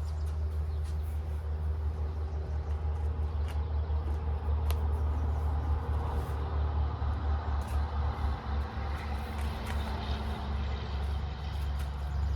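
A steady low engine rumble, as of a motor vehicle running close by.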